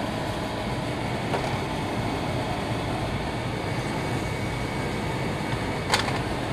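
Steady rushing background noise, with a light knock about a second in and a sharp clack near the end.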